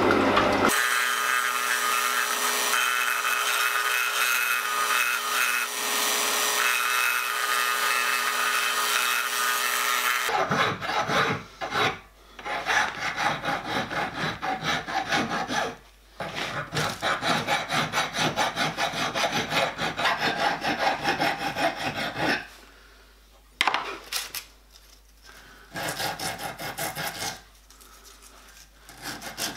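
A linisher (belt sander) running steadily for about the first ten seconds. Then a hand file rasps in repeated strokes across the edge of a metal plate held in a bench vise, in runs with short pauses.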